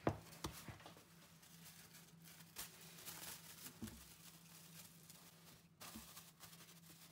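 Quiet kitchen handling sounds: a few soft thumps of hands punching down bread dough in a plastic bowl about the first second, then a faint crinkle of cling film being pressed over the bowl near the end, over a faint low steady hum.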